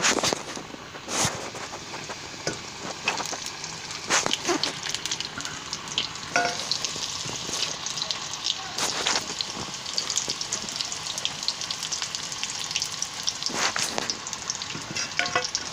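Onion samosas deep-frying in hot oil in a kadai: a steady sizzle full of small crackles, with a few sharp clicks.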